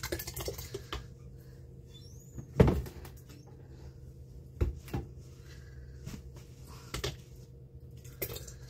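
Kitchen cupboard and glass canning jars being handled: a handful of separate knocks and thuds, the loudest about two and a half seconds in.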